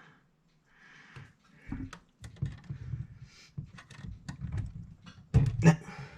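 Small clicks, taps and knocks of metal clock parts being handled and pushed into place while refitting a control arm in an old mechanical clock movement, with a louder low thump a little after five seconds.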